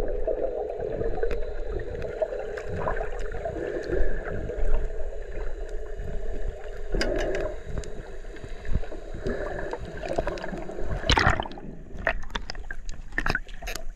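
Underwater sound picked up by a diver's camera: a steady muffled water rush with bubbling, and scattered sharp clicks and crackles throughout, the loudest a sharp burst about eleven seconds in.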